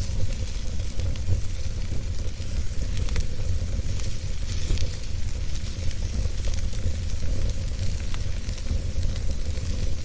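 Wood fire burning in a fire pit: a steady hiss over a low rumble, with scattered small crackles and pops.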